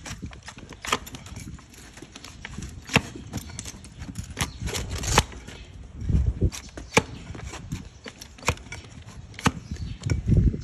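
A flat hoof-trimming blade paring a donkey's hoof held on a wooden stool: a run of sharp, irregular scraping cuts and cracks as slivers of horn come off, with a couple of heavier low thumps about six seconds in and near the end.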